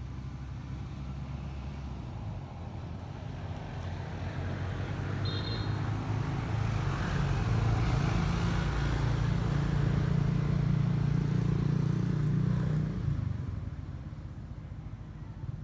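A motor engine passes close by, humming low and growing louder for several seconds, then fading away about two-thirds of the way through.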